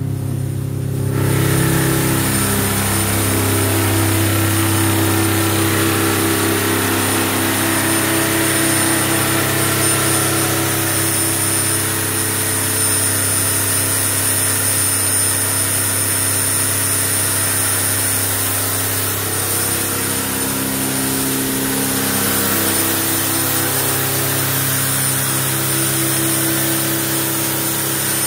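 Detroit Diesel 4-53T turbocharged two-stroke mechanical diesel running on an engine dynamometer. It gets louder about a second in, with a thin high whine over the engine note throughout.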